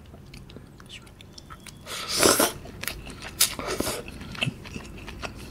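Close-miked eating of a mouthful of glass noodles with clam. There are faint mouth clicks, then a loud burst about two seconds in as the mouthful goes in, followed by chewing with a few more bursts and clicks.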